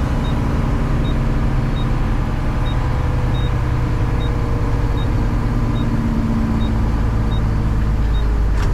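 Garbage truck engine running steadily with a low hum, while a faint, short high-pitched beep repeats about every two-thirds of a second.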